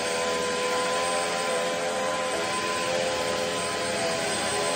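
Upright vacuum cleaner running steadily on carpet, a motor whine over a rushing air noise, the whine wavering slightly in pitch as it is pushed along.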